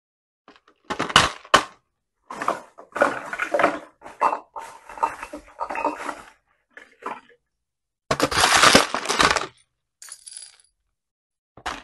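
Small plastic beads clattering and rattling as a metal ladle scoops them out of a plastic tub and pours them into a small bowl. It comes in a series of short bursts, with the longest and loudest pour about eight seconds in.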